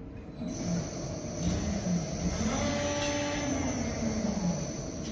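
Machine in a metal-fabrication shop running with a steady hum, its motor pitch rising and then falling back over about two seconds midway through.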